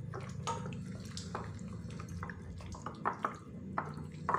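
A bare hand kneading chicken wing pieces in cornstarch in a glass bowl: irregular wet squelching and sticky clicking, several a second, as the pieces are squeezed and turned. A steady low hum runs underneath.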